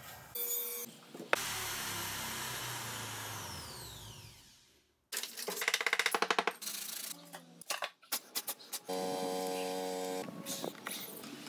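A series of work sounds. First a click, then a table saw blade winding down with a whine that falls steadily in pitch. Then rapid clattering and scraping of concrete mix being shovelled into a mould, then a short steady drone of a ride-on lawn mower engine.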